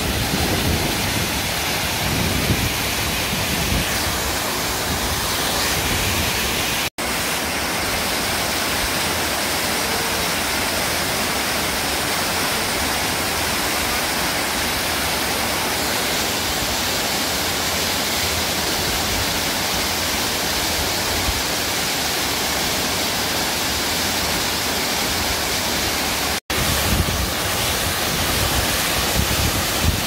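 A waterfall about 50 m high plunging into its pool: a steady, loud rush of falling water. The sound cuts out for an instant twice, about seven seconds in and a few seconds before the end, and is fuller and deeper in the first few seconds and after the second cut.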